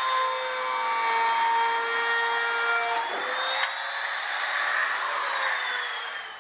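Small electric trim router running and cutting along the edge of an aluminum sheet stiffener, a steady high motor whine over the cutting noise. The motor winds down near the end.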